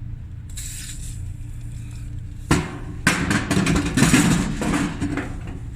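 A short hiss of aerosol spray, then a sharp click and a couple of seconds of clattering and scraping as a seized dryer drum roller is handled and rubbed clean with WD-40. A steady low hum runs underneath.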